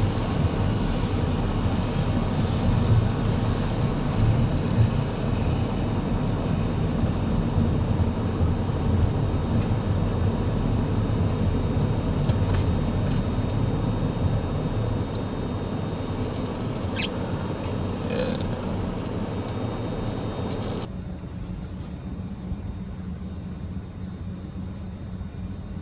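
Steady road and engine noise of a car driving, a low rumble with a light hiss above it. About 21 seconds in, the sound changes abruptly to a quieter, duller rumble.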